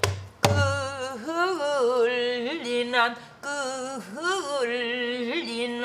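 A woman singing pansori, one long melismatic line held on sustained notes with swooping, wavering ornaments, opened by a couple of strokes on a buk barrel drum.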